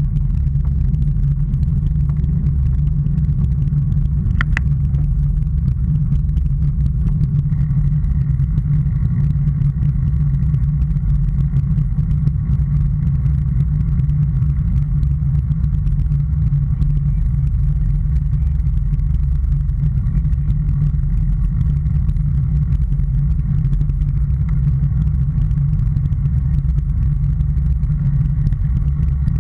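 Wind rush and road rumble on a bicycle-mounted action camera while riding: a steady low rumble, with a single sharp click about four and a half seconds in.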